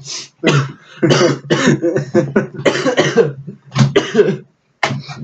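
A person coughing in a series of short bursts.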